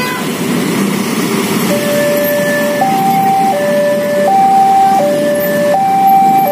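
Railway level-crossing warning alarm sounding a two-tone electronic signal, alternating between a lower and a higher note about every 0.7 s and starting about a second and a half in, the warning that a train is approaching. Under it, steady street traffic of idling motorcycles and cars.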